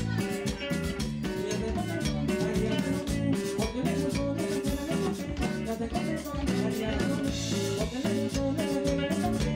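Background music: an upbeat Tejano band song with a steady drum-kit beat.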